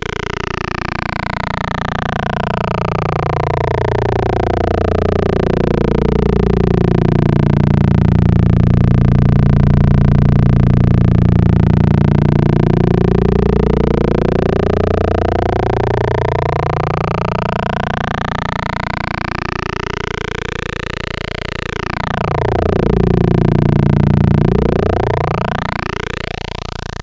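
Moog Spectravox analog synthesizer holding one sustained buzzy oscillator note, its tone slowly sweeping darker and back brighter, then sweeping down and up again more quickly near the end.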